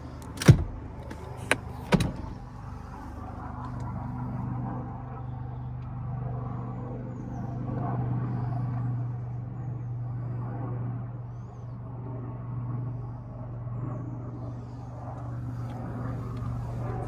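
Audi A5's 2.0 TFSI four-cylinder petrol engine idling steadily, after a few sharp knocks in the first two seconds, the loudest about half a second in.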